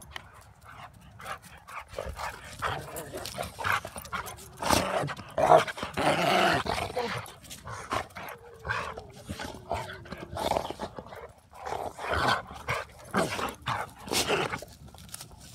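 A young Rottweiler and a pit bull play-fighting, barking and yipping in short irregular outbursts, busiest and loudest about five to seven seconds in.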